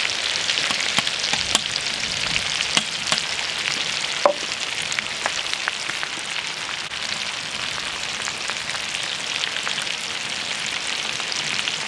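Young potatoes and fat-tail cracklings frying in rendered fat-tail lard in a heavy cast-iron sač: a steady sizzle full of small pops and crackles. A single sharp tap with a short ring comes about four seconds in.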